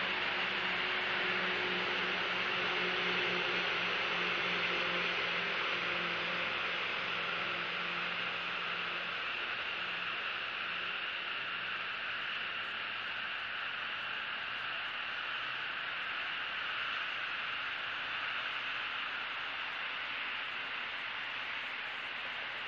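Steady outdoor background hiss, with a faint low hum that fades out about nine seconds in.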